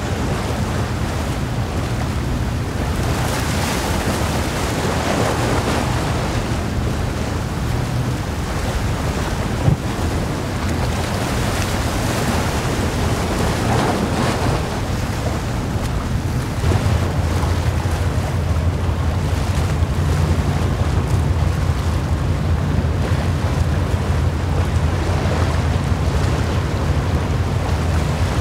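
Wind buffeting the microphone over choppy sea, with a low, steady engine drone from the approaching container ship and her tug that swells about two-thirds of the way through as they draw closer. There is one brief bump about ten seconds in.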